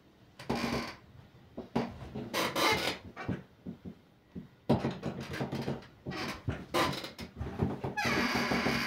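Handling noise from a phone being moved about: irregular knocks, bumps and rubs against the body and microphone, with a longer scraping rustle near the end.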